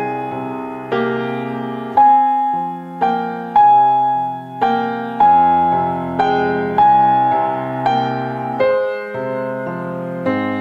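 Solo piano playing a slow, gentle melody, a new note or chord struck about once a second and left to ring away.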